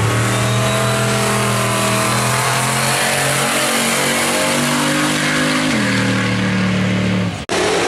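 Pickup truck's engine at full throttle, launching off the drag-strip start line and accelerating hard down the track, its pitch dropping once about six seconds in. The sound breaks off abruptly near the end.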